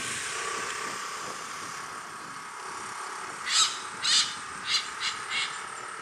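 Pied hornbill calling: five short, loud calls in quick succession, beginning a little past halfway, over a faint steady background hum.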